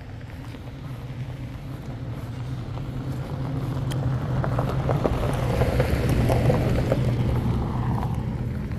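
Pickup truck driving slowly past on a gravel track: a steady low engine hum with tyres crackling over the gravel, growing louder through the middle and easing off near the end as it moves away.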